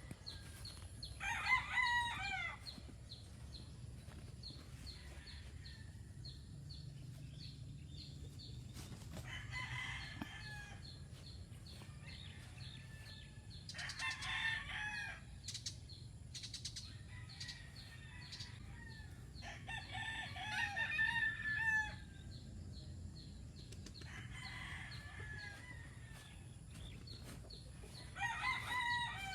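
Roosters crowing in turn, six full crows a few seconds apart, the loudest about a second and a half in, with a steady low hum underneath.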